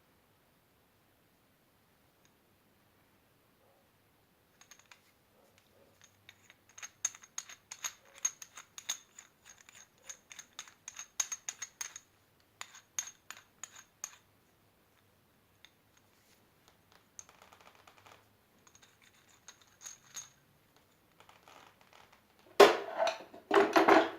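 Quick, light clicks and ticks of small hard objects being handled, followed by a louder scraping clatter near the end.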